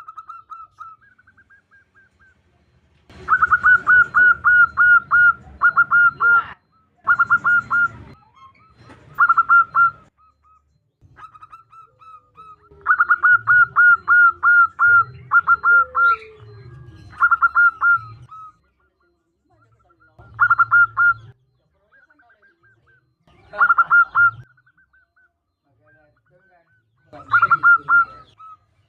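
Zebra dove (perkutut) cooing in bursts of rapid, evenly spaced notes, with pauses and a few softer notes between the bursts. It is offered as a female's call to draw a male into song.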